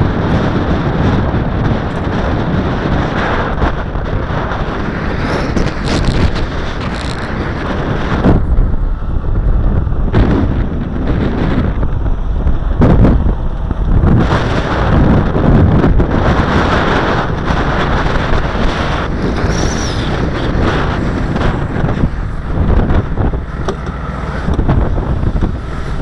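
Wind buffeting the microphone of a body-worn camera, loud and uneven.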